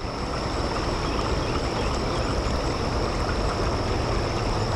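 Shallow creek running over rocks, a steady wash of water, with wind rumbling on the microphone.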